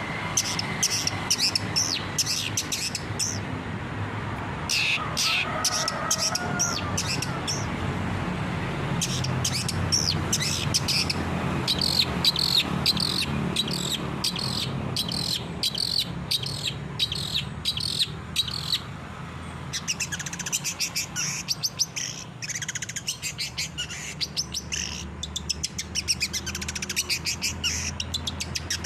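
Long-tailed shrike (cendet) singing a fast, chattering song of rapid, sharp notes in long runs, broken by brief pauses, over a low steady background hum.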